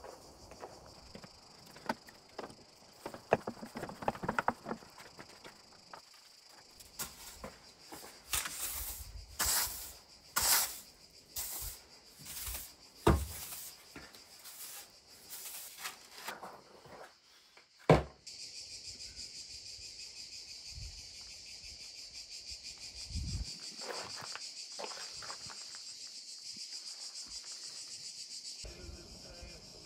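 Push-broom strokes swishing across a floor, with two sharp knocks, followed by a steady high drone of insects for the last third.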